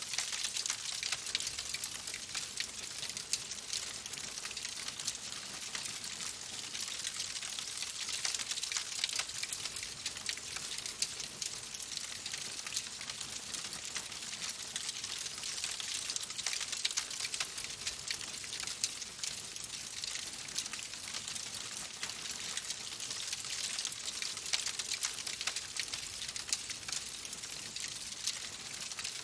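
Wood fire crackling in a fireplace: a steady dense stream of small crackles over a soft hiss, with scattered louder pops.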